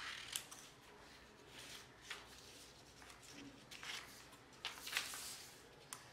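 Scissors cutting through stiff paper in several short, irregularly spaced snips, with paper rustling as the sheet is moved; the loudest snips come about five seconds in.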